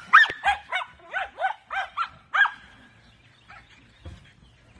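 Small dogs barking excitedly at play: a quick run of about eight short, high-pitched barks, which stops about two and a half seconds in.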